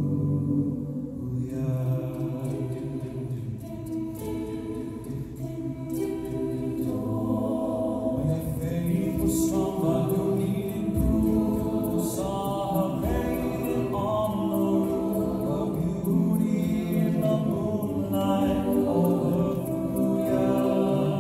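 Mixed-voice a cappella group singing sustained harmonised chords into handheld microphones, amplified through stage speakers. The singing softens a few seconds in, then swells again.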